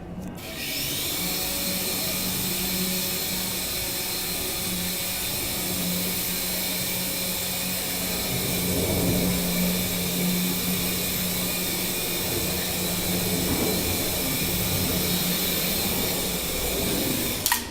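Small electric R/C helicopter's motor and rotor blades whirring with a steady high whine as it hovers, the pitch and level wavering slightly in the middle.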